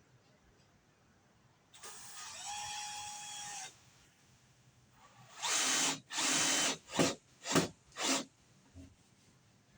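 Power drill running in a steady whine for about two seconds, then after a pause run in two longer bursts and three quick short ones: the trigger pulses of driving a screw home into wood.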